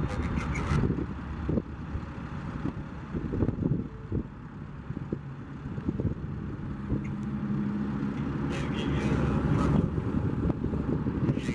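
Road traffic and vehicle engines: a steady low rumble, with one engine's drone building from about halfway through and easing near the end.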